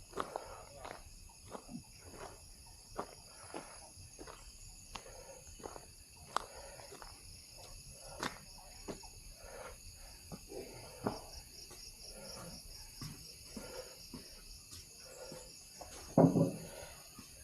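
Footsteps on a hill trail at a walking pace, with insects chirring steadily and high-pitched in the background. One louder thump comes about a second before the end.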